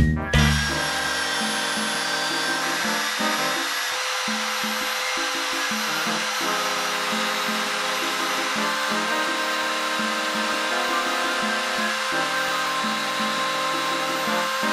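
Electric belt sander running steadily, with a walnut knife handle held against the moving belt to shape it. Background music with a bass line plays underneath.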